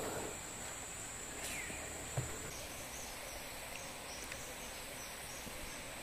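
Forest ambience dominated by a steady, high-pitched insect drone, which breaks into an uneven pulsing trill a couple of seconds in. A single falling bird call sounds about 1.5 s in, and a soft knock just after 2 s.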